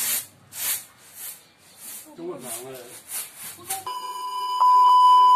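Rice grains swishing in a round winnowing tray, tossed in a steady rhythm of about two strokes a second. Near the end this gives way to a loud, steady TV test-card beep that cuts off abruptly.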